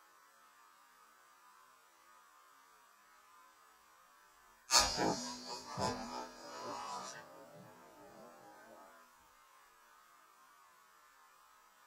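Two shotgun shots about a second apart, the first louder, with the sound echoing away over a few seconds.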